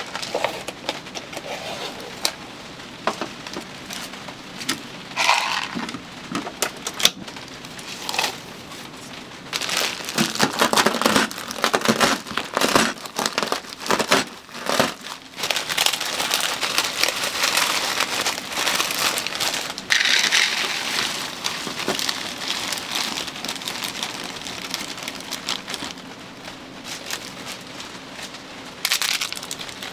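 Food being prepared for cup-noodle fried rice: irregular crinkling and crackling with scattered clicks and clatters, busier in the middle stretch.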